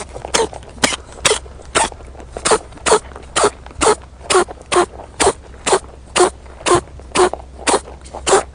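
A rabbit sneezing over and over in quick, short, sharp sneezes, about two a second without a break, around eighteen in all.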